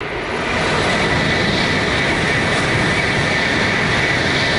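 Tokaido Shinkansen bullet train passing at speed: a loud, steady rushing noise.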